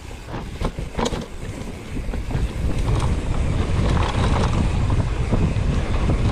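Wind buffeting the microphone on a mountain bike ridden downhill, with sharp rattles and knocks from the bike over rough ground. The wind rumble swells about two seconds in and stays loud.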